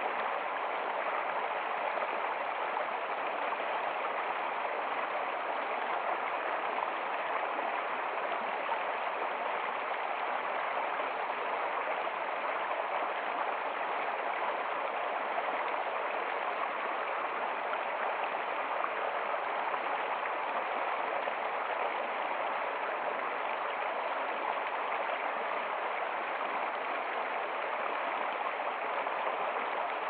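Shallow stream of snowmelt-cold water rushing and splashing over rocks in a steady, even flow, heard right at the water's surface.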